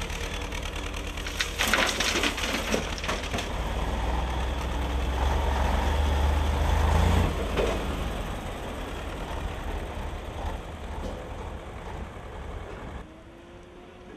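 Diesel engines of an excavator and a dump truck running at a roadworks site, with a crunching clatter of broken asphalt rubble about two seconds in. A heavier low engine rumble swells through the middle, and near the end the sound drops to a quieter background.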